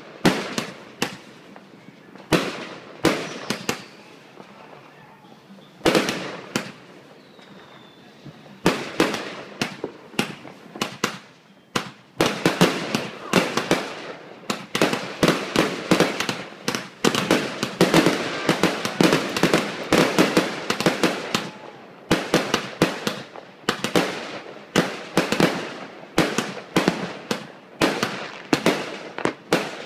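Aerial fireworks going off in a finale barrage. At first there are a few scattered bangs; from about nine seconds in they come in a rapid, near-continuous run of several bangs a second.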